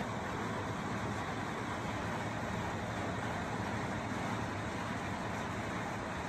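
Steady background noise with a low hum and no distinct events.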